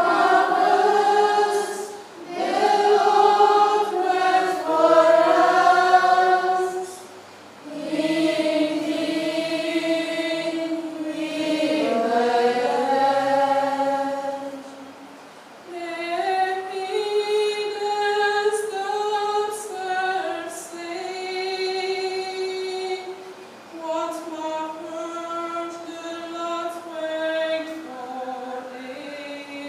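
A woman cantor singing the verses of the responsorial psalm unaccompanied, in slow chant-like phrases with held notes and short breaths between them.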